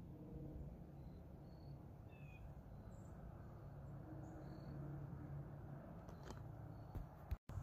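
Quiet outdoor ambience: a low steady background hum with a few faint, short, high chirps of small birds scattered through it, and a couple of faint clicks near the end.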